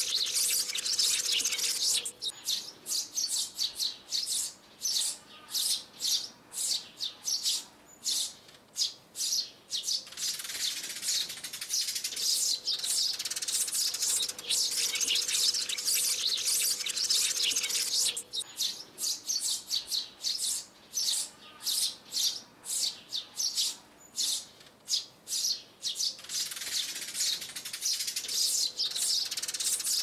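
Sparrows chirping, a recorded lure call for trapping sparrows. Stretches of dense, overlapping flock chatter alternate every several seconds with quick single chirps, a few a second.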